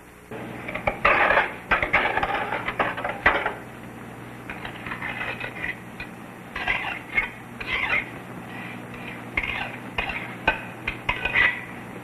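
Hard objects clinking, clattering and scraping in irregular bursts, like stones and metal being handled and set down. The loudest clatter comes about a second in and again after three seconds.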